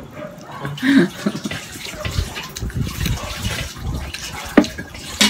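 Liquid poured into a cup, with a single sharp knock near the end.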